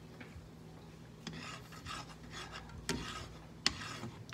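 Plastic slotted spatula scraping and sliding around a nonstick frying pan, spreading melted butter, in repeated strokes starting about a second in. Twice there is a sharper click of the spatula against the pan.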